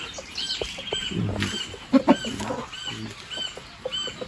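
Chicks peeping over and over, each peep a short high call that rises and falls, a few a second, mixed with low clucking from a hen.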